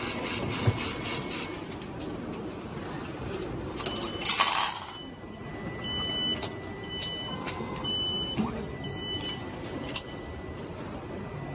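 Japanese station ticket vending machine paying out a ticket and change: a clatter of about a second a little before the middle as the change drops out, then four short high beeps under a steady tone, the machine's prompt to take the ticket and change.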